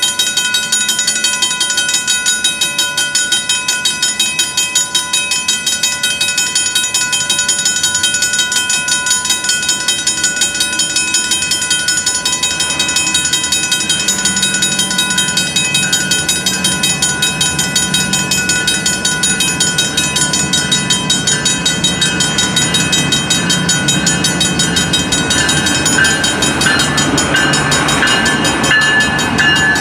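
Two Griswold mechanical crossing bells ringing in rapid, steady strokes. From about halfway a low rumble from an approaching Union Pacific diesel locomotive builds under them, and it grows louder near the end as the train reaches the crossing.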